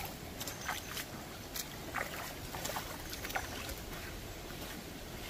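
Nortiv8 Armadillo 2 waterproof suede hiking boots splashing step by step through a shallow creek, an uneven run of short splashes, over the steady rush of the flowing water.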